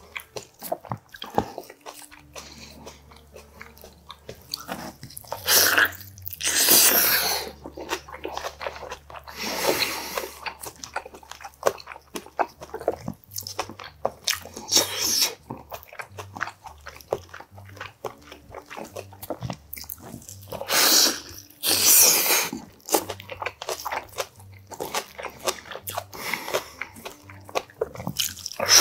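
Close-miked chewing and biting of boiled oxtail meat on the bone: many small wet clicks of the mouth and teeth, with several louder sucking pulls as meat is stripped from the bones.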